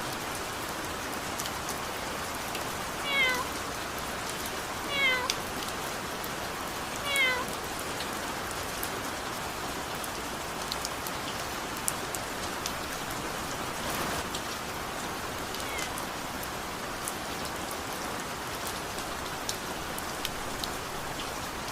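Steady rain with scattered drops, and a cat meowing three short falling-pitched meows about two seconds apart in the first third, with a faint fourth one later.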